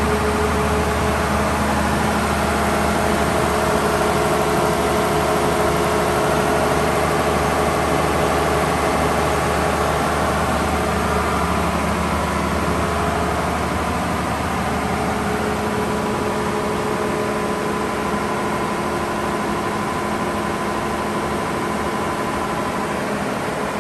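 Gardner 6LXB six-cylinder diesel engine of a generating set running at a steady speed, an even, unchanging beat with no revving. It grows a little fainter about two-thirds of the way through.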